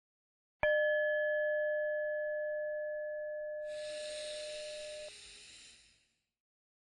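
A meditation bell struck once, its clear ringing tone fading slowly and then cutting off suddenly. A slow breath is heard over the last part of the ringing.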